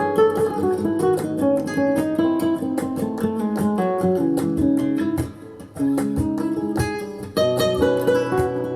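Acoustic guitar music with quick plucked notes, played back through a Grundig Super HiFi Box 2500 loudspeaker for a listening test. The music dips briefly about five and a half seconds in.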